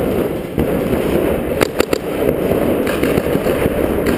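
Paintball guns firing: a quick string of three or four sharp pops about one and a half seconds in, over a constant rumbling noise.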